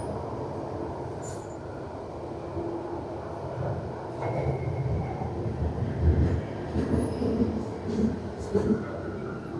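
London Underground train running, heard from inside the carriage: a steady low rumble with a brief faint wheel squeal and a run of louder knocks and bumps in the second half.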